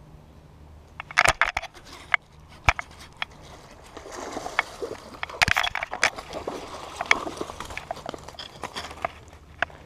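A hooked bass splashing and thrashing in shallow water as it is reeled to the bank. Sharp clicks and knocks from handling the rod and reel run through it.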